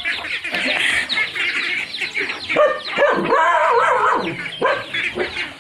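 Chickens clucking and chirping in quick, overlapping calls, with a louder, wavering call in the middle.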